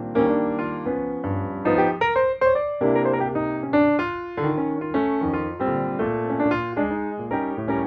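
Background piano music: a continuous run of struck notes and chords, each ringing and fading.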